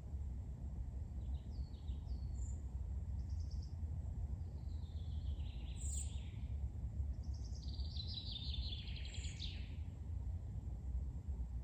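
Forest birds calling: scattered short chirps, then a longer trilled song phrase about eight seconds in. A steady low rumble runs underneath.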